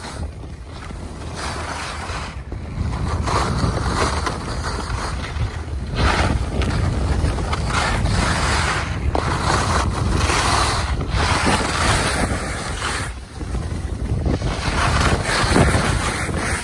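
Wind buffeting the microphone: a rumbling rush of noise that swells and dips in gusts.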